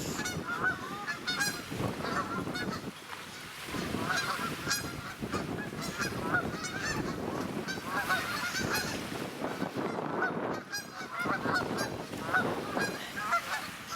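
A flock of geese honking, many short calls overlapping throughout, over a steady rush of wind.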